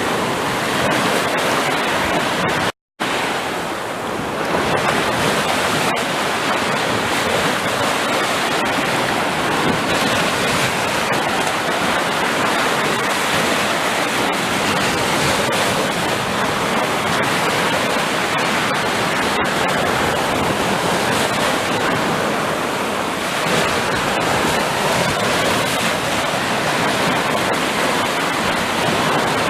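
Sea surf: a steady, continuous rush of waves, broken by a split-second gap of silence about three seconds in.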